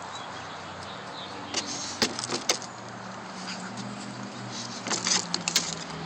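Sharp plastic clicks and knocks as a dog mouths and drops a plastic frisbee on the dirt, a few scattered taps with a cluster near the end, over a low steady hum.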